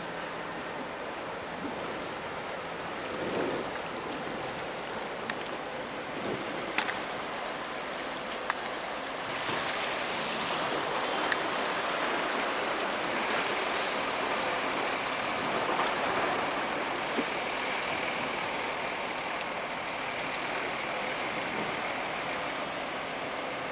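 Steady rush of splashing water, swelling a little about nine seconds in, with a few sharp clicks.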